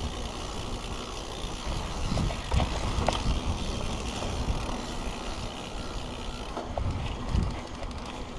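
Mountain bike rolling down a dirt singletrack: tyres running over dirt and the bike rattling over bumps, with a few sharper knocks a couple of seconds in, and wind buffeting the action camera's microphone in low gusts.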